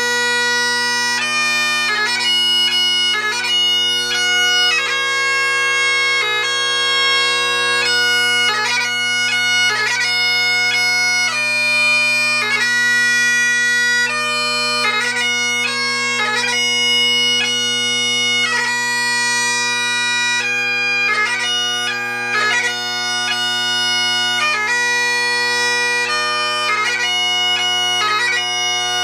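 Great Highland bagpipe played solo: the drones hold one steady tone under the chanter's slow piobaireachd melody, each held note broken by quick grace-note flourishes.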